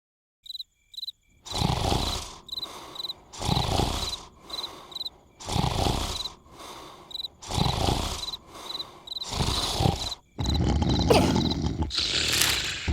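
Cartoon snoring: loud, rasping snores about every two seconds, with crickets chirping in the gaps. From about ten seconds in, a louder continuous noise takes over.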